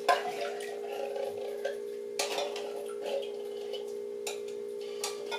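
A few light clicks and knocks of kitchen utensils and containers handled at a mixing bowl, spread out over the seconds, over a steady low hum.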